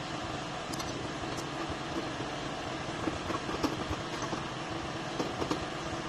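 Steady mechanical drone of a bridge girder erection machine running as its hydraulic front support leg folds up, with a few light knocks in the second half.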